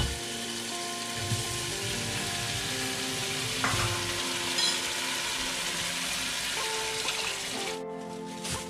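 Curry spice paste frying in oil in a pot, a steady sizzle that cuts off abruptly near the end.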